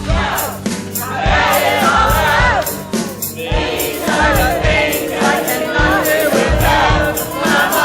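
A group of voices singing together over band accompaniment with drums.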